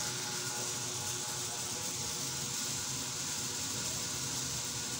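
Steady background hiss with a faint low hum, unchanging throughout: room tone with no distinct event.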